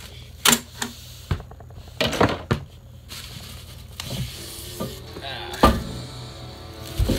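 Bubble wrap rustling and crinkling as it is handled and pulled out of a metal ammo can, with several sharp knocks and clunks of the steel can in between.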